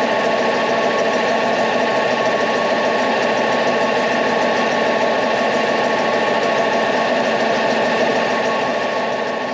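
Panhard AML armoured car's four-cylinder air-cooled petrol engine idling steadily with a fast, even chatter, running on new spark plugs and altered suppressed HT leads, the fix for a cylinder that was not firing.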